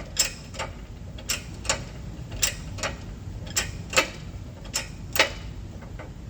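Shop press being worked by hand to push a rubber bushing onto a control arm. It gives a regular clicking, two sharp clicks on each stroke, a little over one stroke a second.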